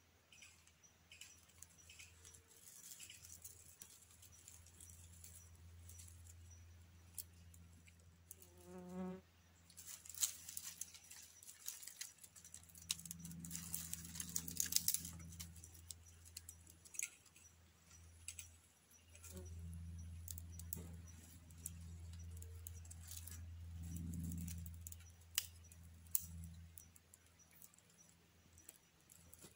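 Dry twigs snapped by hand and kindling crackling as a small campfire catches, a scattered run of sharp snaps and clicks, busiest a few seconds in. Flies buzz close by at times, swelling and fading.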